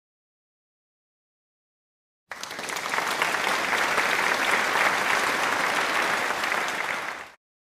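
Applause, many hands clapping. It starts suddenly about two seconds in, runs for about five seconds and cuts off abruptly.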